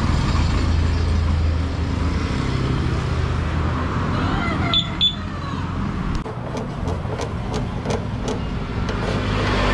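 An engine runs steadily at idle with a low, even hum. About halfway there is a short double chirp, and for the last few seconds light regular ticks come about three times a second.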